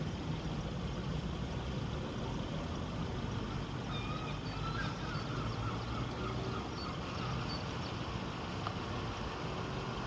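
Steady low rumble of street traffic, with a few faint short chirps around the middle.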